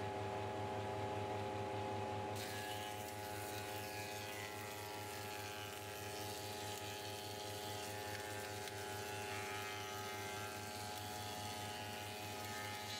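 Spindle moulder with a Steff 2038 power feeder running steadily, cutting a rebate along a narrow wooden strip. A hissing cutting noise joins about two seconds in, over the steady motor hum.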